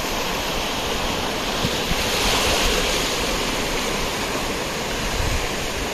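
Sea surf: waves breaking and washing up the beach in a steady rush, swelling a little about two seconds in.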